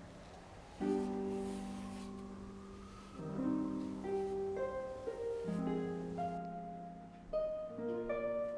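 Soft background music: gentle pitched chords that sound and slowly fade, a new chord about every two seconds.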